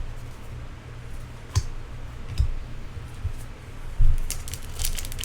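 Trading cards being handled at a table: a few light clicks and taps, then a short run of crisp rustling near the end, over a steady low hum.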